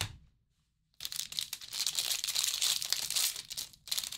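A short knock, then a trading-card pack's wrapper crinkling and tearing for about three seconds, with a brief crinkle again near the end.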